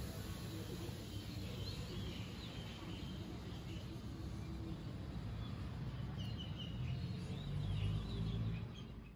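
Outdoor ambience: a steady low rumble with faint bird chirps scattered through it. The rumble grows louder near the end.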